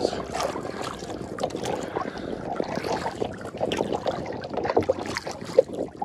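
Water sounds of a cedar-canvas canoe being paddled: irregular splashing and trickling from the paddle and the water along the hull, with one sharper, louder sound near the end.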